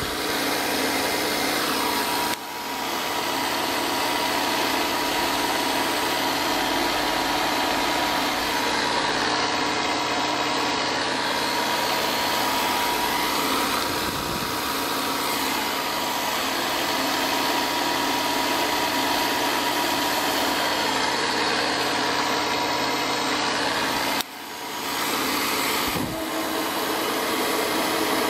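TOS FNK 2 universal milling machine running: a steady machine drone with a constant whine. It dips twice, briefly and sharply, and picks back up.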